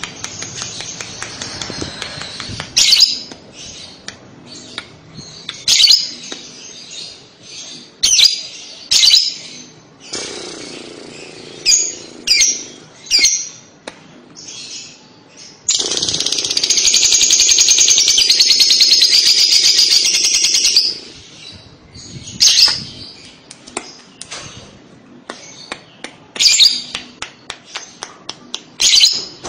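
Lovebird calling: sharp, high chirps scattered through, and about halfway a continuous rapid chatter (the 'ngekek' trill) lasting about five seconds, then more single chirps.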